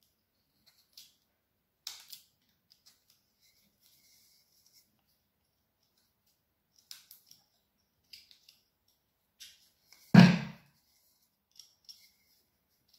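Small palm gouge cutting into the wood of a branch: short, scattered slicing strokes. About ten seconds in there is a single loud knock, the loudest sound.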